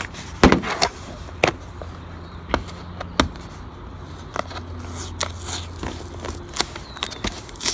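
Fingernails scratching and picking at clear packing tape on a cardboard box, working the tape edge loose: irregular scrapes and sharp clicks against the cardboard.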